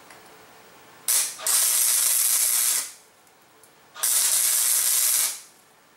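Wire-feed welder arc sizzling in two short bursts, about a second and a half and then just over a second, tack-welding a bolt onto a steel part.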